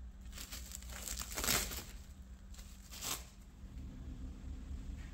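Plastic cling film crinkling as it is peeled back from a glass bowl, in three short bursts, the loudest about a second and a half in.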